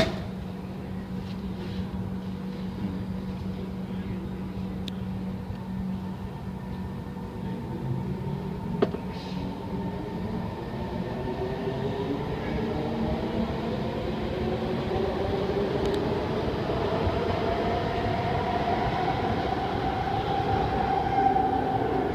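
SMRT C151 metro train pulling out of an underground station. A steady hum gives way, from about eight seconds in, to the train's motor whine rising steadily in pitch and growing louder as it accelerates away. There is a single clunk about nine seconds in.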